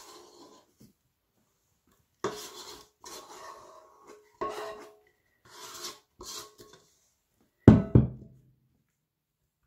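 Plastic dough scraper scraping sticky dough out of a metal mixing bowl in several separate strokes, then a heavy knock near the end.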